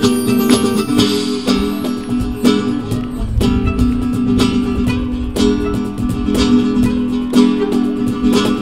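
Flamenco-style acoustic guitar music, with sustained chords crossed by a dense run of sharp, rhythmic attacks.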